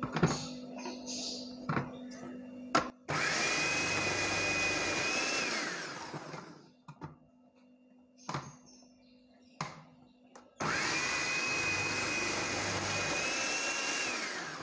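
Electric food processor grating potatoes: the motor starts abruptly, runs steadily with a whine for about three seconds, then winds down with the whine falling. About ten and a half seconds in it starts again and runs steadily. A few short knocks come in the pause between the runs and just before the first one.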